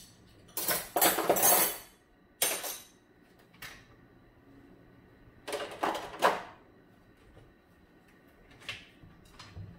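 Dishes and cutlery clinking and clattering in a few short, irregular bursts, the loudest about a second in and again around six seconds.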